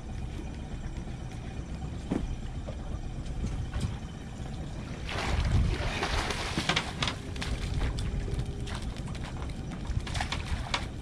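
Boat motor running with wind on the microphone. A louder rush of noise comes about five seconds in, followed by scattered clicks and knocks.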